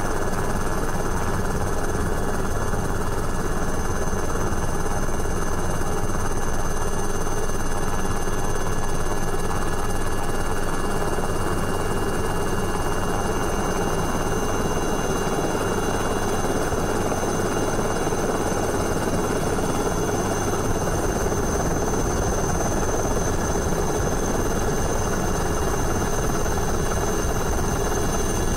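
Helicopter in flight, running steadily: a dense, even rotor and engine noise with thin, steady high-pitched whines over it.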